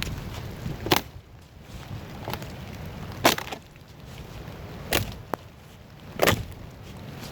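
Sharp knocks of wood being struck, four hits spaced about one and a half to two seconds apart.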